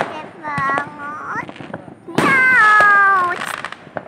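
Voices calling out with drawn-out, slightly falling tones, the loudest about two seconds in, among a few sharp firework bangs.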